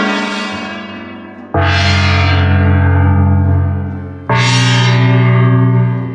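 Comedic gong-crash sound-effect stings: one is already ringing out at the start, then two more loud gong-like crashes land about a second and a half in and just past four seconds in, each ringing for a couple of seconds before fading.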